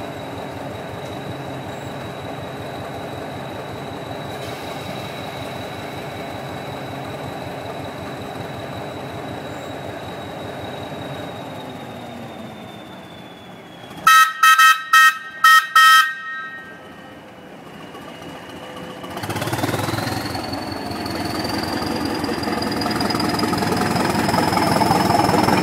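Hastings Diesels DEMU unit 1001 idling, its diesel engine running steadily with a thin high whine. Around the middle come about six quick, loud toots on the train's horn, then the engine powers up, growing louder while its whine rises in pitch.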